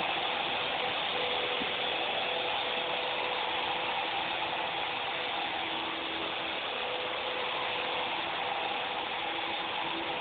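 Small RC toy helicopter's electric motor, gears and rotors whirring steadily, with a gear buzz and a few held tones.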